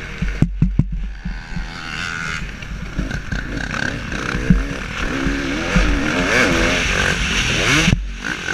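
KTM 300 SX two-stroke motocross engine heard from the rider's helmet camera, revving up and down as the throttle is worked. The engine sound drops away briefly about half a second in, with a few sharp knocks.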